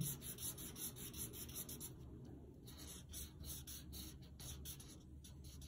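Felt-tip marker rubbing on paper in a rapid run of short colouring strokes, faint and scratchy, as a pale yellow area is filled in.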